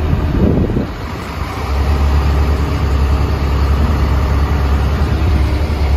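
Irish Rail diesel commuter train at the platform, its underfloor engines running with a steady low drone that swells about two seconds in.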